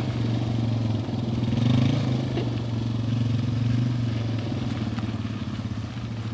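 Yamaha TT-R250's single-cylinder four-stroke engine running steadily at low revs, with a slight rise in revs about two seconds in, then gradually fading over the last couple of seconds.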